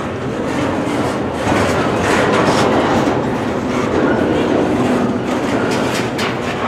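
Cars of a loaded freight train rolling past: a steady rumble of steel wheels on rail with repeated clacking over the joints.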